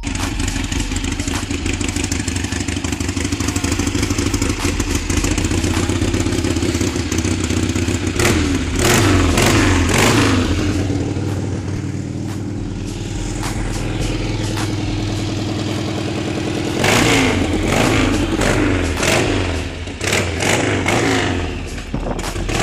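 Motorcycle engines running at road speed under a steady rush of wind. Twice the revs rise and fall through gear changes, about a third of the way in and again past two-thirds.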